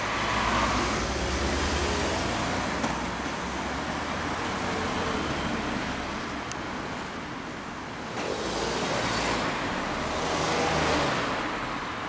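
Honda CB750 (RC42) inline-four motorcycle pulling away into street traffic, its engine strongest at first and then blending into the steady noise of road traffic. Another vehicle goes by a few seconds before the end.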